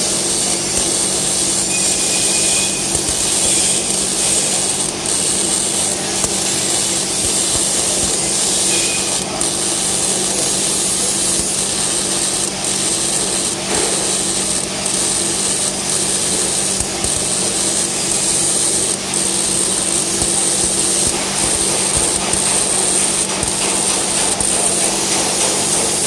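MIG welding arc crackling and sizzling steadily as a bead is run to join two pieces of metal, the wire fed continuously through an argon-shielded arc from a Lincoln Electric MIG welder, with a steady hum underneath.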